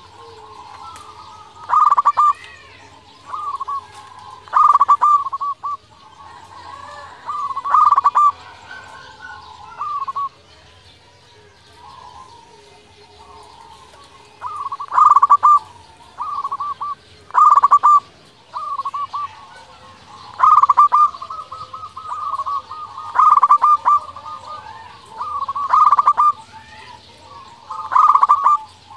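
Local zebra dove (perkutut) singing: repeated short phrases of rapid, pulsing coos, one every second or two, with a pause of a few seconds about ten seconds in.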